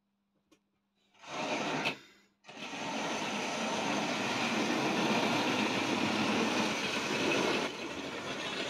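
Tri-ang OO-gauge model train running along the track: the steady whirring of its small electric motor and wheels on the rails. It starts about two and a half seconds in, after a second of near silence and a short burst of noise, and holds steady with a slight dip near the end.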